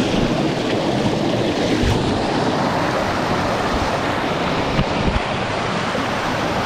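Swift creek white water rushing over rocks: a steady, loud rush of water. A few brief low thumps come through it about two and five seconds in.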